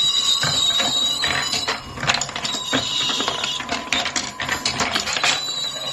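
Marbles rolling and clattering down a handmade wooden marble run: a dense, uneven stream of clicks and knocks.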